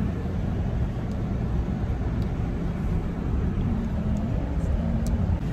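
Steady low rumble of a large SUV's engine and road noise, heard from inside the cabin, with a few faint clicks.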